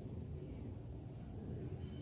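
Steady low outdoor rumble, with a faint, short budgerigar chirp near the end.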